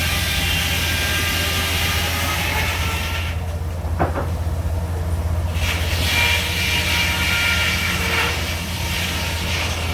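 Sawmill blade running and cutting a log: a steady low drone under shifting high-pitched whining tones that ease off briefly a couple of times, with one sharp knock partway through.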